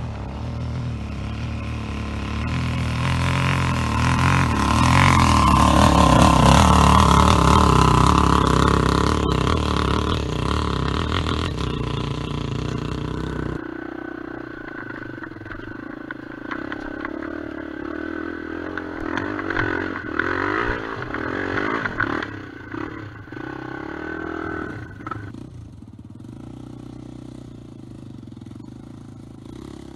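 Enduro motorcycle engine revving hard on a climb, its pitch rising and falling with the throttle, loudest a few seconds in. About halfway through, the sound cuts to a quieter engine running with stones clattering and scraping under the tyres.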